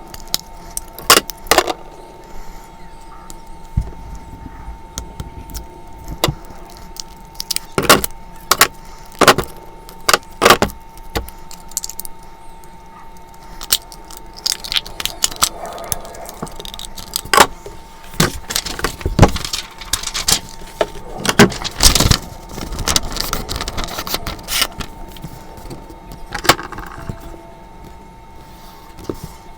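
Irregular sharp clicks and clinks of drawing tools, such as a mechanical pencil, being handled on a desk, over a steady faint tone.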